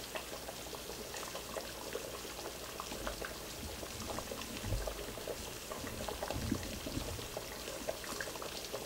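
Large stockpot of chicken gumbo boiling, with a steady stream of small bubbling pops and a couple of low bumps near the middle.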